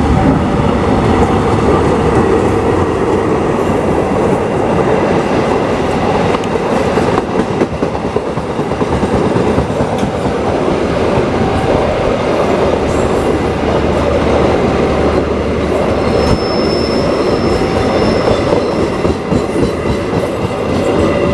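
A diesel-hauled passenger train, the KA Sritanjung's locomotive and coaches, passing close by: a loud, steady rumble with the clatter of wheels over the rail joints. A brief high wheel squeal comes about three-quarters of the way through.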